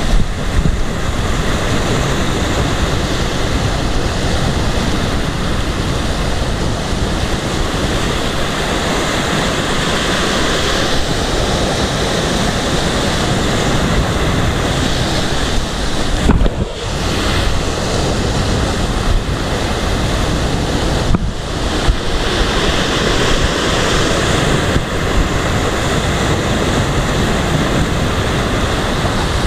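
Sea waves breaking and surging steadily against a rocky shore, with wind buffeting the microphone.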